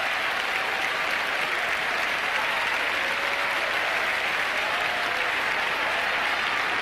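Large crowd applauding steadily, a dense, even clapping.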